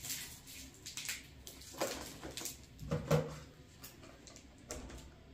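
Cardboard parcel being opened by hand: irregular scrapes, rustles and small knocks as packing tape and cardboard are worked loose.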